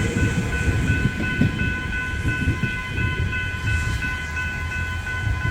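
General Signal Type 3 level crossing bells ringing with a rapid, steady pulse, over the low rumble of a passing X'Trapolis 100 electric suburban train.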